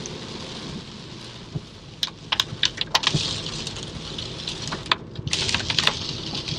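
Rain on a running car: a steady hiss with bursts of sharp taps about two seconds in and again near five seconds.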